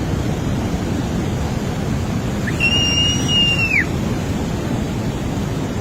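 Steady rushing of fast-flowing floodwater. About two and a half seconds in, a single high whistle lasts about a second, rising at the start and falling at the end.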